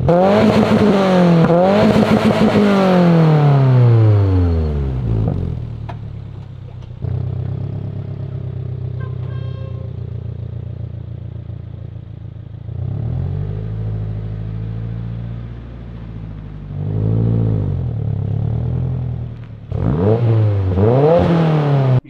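2022+ Subaru WRX's turbocharged 2.4-litre flat-four, heard from behind the car about 20 feet away through a Tomei Expreme full titanium Type-R exhaust, a quiet 'gentleman's exhaust'. It is revved twice in quick succession, settles to a steady idle, then gets a longer rev in the middle and a few short blips near the end.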